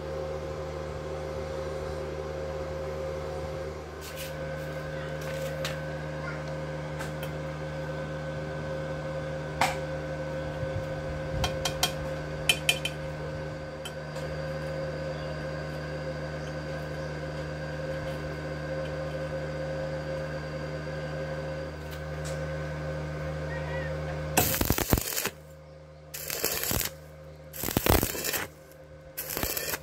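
A steady hum runs with a few light metallic taps about ten to thirteen seconds in. Near the end, a stick-welding electrode arcs on thin square steel tube and crackles in several short bursts with brief pauses between them.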